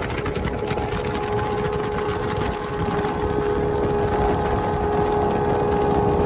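Speedboat engine running steadily at slow cruising speed: an even drone with a steady pitch, over the rush of water and wind along the hull.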